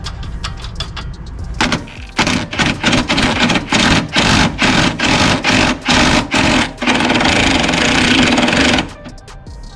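Ridgid cordless impact driver running a socket on an upper strut-mount nut on the front strut tower: a quick run of short trigger bursts, then a continuous rattle of about two seconds before it stops near the end.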